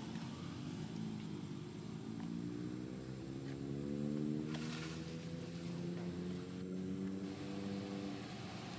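Engine of a motor vehicle running off-screen, its pitch rising slowly and then holding steady for several seconds before fading out near the end.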